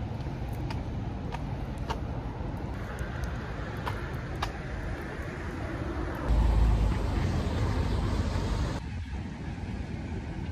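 Road traffic on a city street: a steady wash of passing cars, with a louder low rumble for a couple of seconds past the middle.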